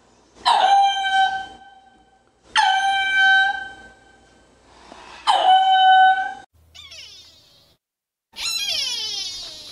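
Ring-tailed lemur calling three times, each a long call held at one steady pitch that starts sharply, about two and a half seconds apart. Near the end a different animal call comes in, sliding down in pitch.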